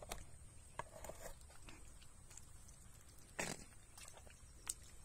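Faint squelches and small splashes in shallow muddy water, with one louder splash about three and a half seconds in.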